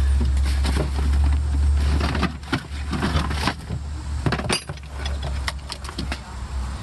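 Metal clinks and knocks of tools and parts being handled, over a low steady rumble that is strongest in the first two seconds.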